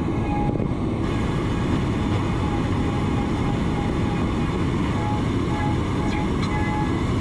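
Heller HF5500 machining center roughing aluminum with a Kennametal KOR5 end mill at high feed: a loud, steady cutting noise with coolant spray and flying chips. A thin high tone comes and goes over it.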